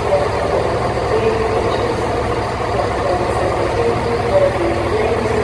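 Underfloor diesel engine of a Class 170 Turbostar diesel multiple unit running steadily.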